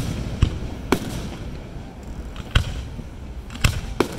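Aerial firework shells bursting overhead: about five sharp bangs at irregular intervals, two close together near the start and two close together near the end.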